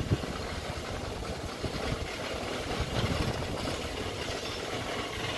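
Low, uneven rumbling and clatter of a wooden roller coaster train running on its track.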